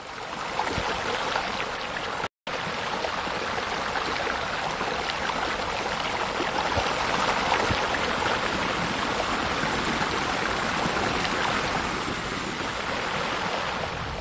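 Steady rush of running water, fading in at the start and cutting out completely for a split second about two seconds in.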